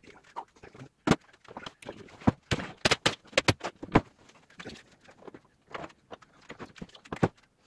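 Irregular knocks, taps and scraping as chipboard panels and wooden parts of an armchair's backrest are handled and set down on a wooden worktable, with the sharpest knocks about a second in and at about four seconds.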